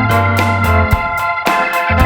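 Background music: a bouncy keyboard tune with a steady beat and a sustained bass line.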